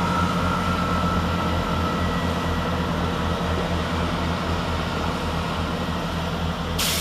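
Diesel engines of a Class 165 Networker Turbo unit running steadily as it departs, with a faint whine dying away in the first couple of seconds. A sudden hiss of noise starts just before the end.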